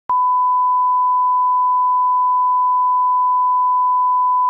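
A television colour-bar test tone: a single steady 1 kHz beep held at one pitch and level without a break.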